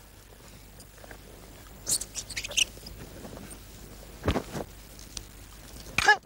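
A wooden spear worked through a martial-arts form: a few quick sharp swishes and taps about two seconds in, and a heavy thud a little past four seconds. Near the end comes a short wavering vocal cry.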